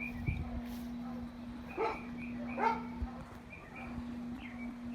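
A dog gives two short barks, about two seconds in and a little under a second apart, over a steady low hum.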